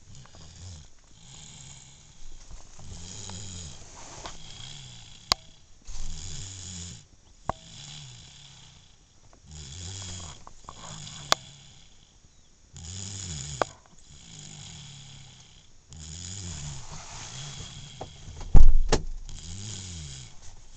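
Sleeping baby snoring, with a low snore every second or two in a steady rhythm. A few short sharp clicks fall in between, and a loud thump comes near the end.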